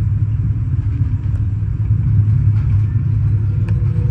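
Steady low rumble of a passenger sleeping car rolling on the rails, heard from inside the car as the train moves slowly into a station.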